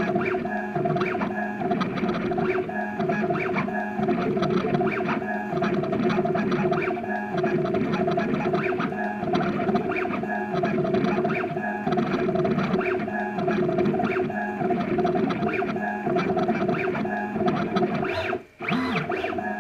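Home-built CNC router's stepper motors whining steadily as the machine moves through a lettering toolpath, over a constant harsh rattle from the GoPro action camera shaking loose in its mount. The sound drops out briefly near the end.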